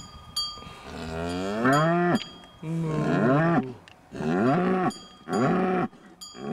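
Fleckvieh cows mooing close up: one long moo that rises and then falls in pitch, followed by a run of shorter moos about a second apart. A cowbell clinks faintly near the start and again near the end.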